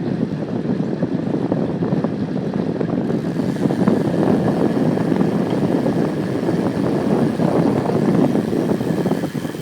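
Wind rushing over the microphone as a bicycle is ridden, a steady rumbling noise that grows a little louder about three seconds in.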